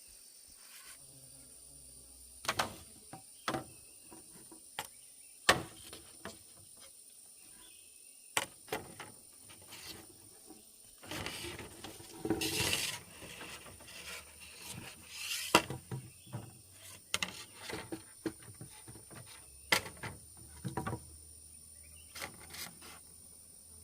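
Irregular knocks and clicks with two longer scraping stretches, like hand work with hard objects.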